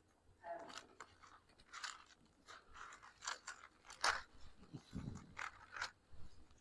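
Faint, irregular crackling rustles of thin paper pages being turned and handled close to the microphone, as a Bible is opened to the reading.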